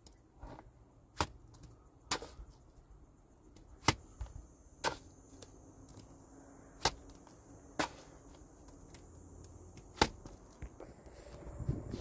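A plasterer's trowel smacking wet plaster onto a concrete-block wall: about seven sharp slaps a second or two apart.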